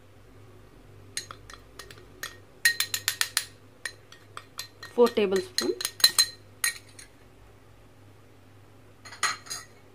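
Kitchen utensils clinking and tapping against a glass plate as spoonfuls of flour are added, with a quick run of clinks about three seconds in and a few more near the end.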